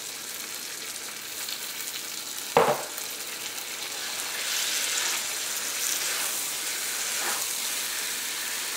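Chicken sizzling in hot oil in a cast-iron wok as chopped tomato is added and stirred in with a spatula. There is a single sharp knock about two and a half seconds in, and the sizzle gets louder from about halfway while it is stirred.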